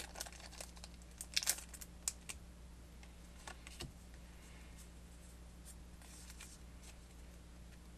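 Foil Pokémon TCG booster pack wrapper being torn open and crinkled: a scatter of faint crackles and short rips, the loudest a little over a second in, thinning out after about four seconds.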